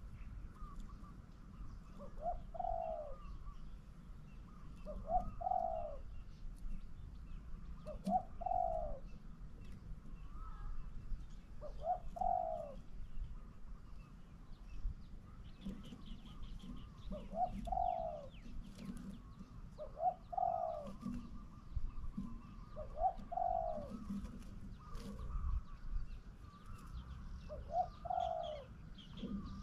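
Spotted dove cooing: a short coo phrase repeated about every three seconds, with a longer pause about halfway through.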